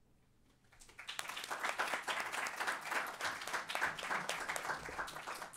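Audience applauding, the clapping starting about a second in and continuing steadily.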